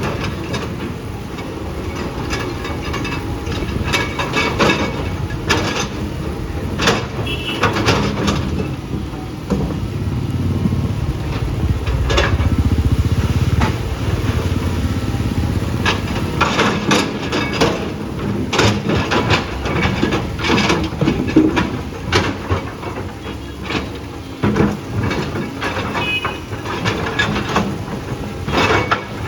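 Heavy earthmoving machine's engine running, with frequent sharp clanks and knocks over it. The engine grows louder for a few seconds around the middle.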